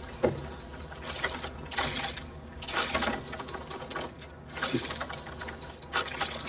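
Mechanical whirring and clattering in repeated bursts about a second apart, like the clockwork works of a coin-operated clown automaton running.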